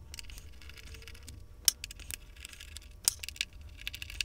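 Small screws being turned out of a metal panel with a hand screwdriver, giving light scratchy ticking. Two sharp clicks come about a second and a half apart, a little before the middle and again past it.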